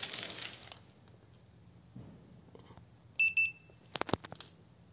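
Handheld infrared thermometer giving two short high beeps about three seconds in as it takes a reading, followed by a few sharp clicks. A brief rustle of handling is heard at the start.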